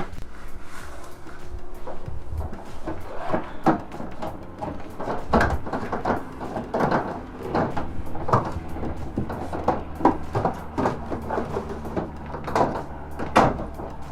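Irregular knocks and clatter, a dozen or more sharp strokes spread throughout, from handling plastic conduit pipe and electrical cable inside a metal van.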